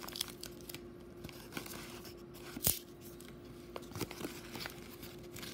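Yellow padded mailer envelope being torn open and handled: paper tearing and rustling with a few short sharp crackles, the sharpest about two and a half seconds in.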